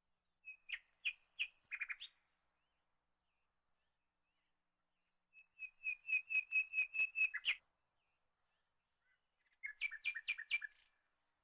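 A bird singing three short phrases of quick repeated chirps; the middle phrase is the longest, about a dozen notes in a fast run.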